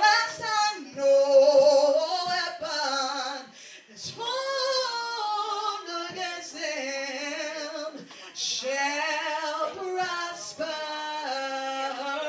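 A woman singing a slow gospel worship song into a microphone, holding long notes that slide between pitches, with a short break about four seconds in.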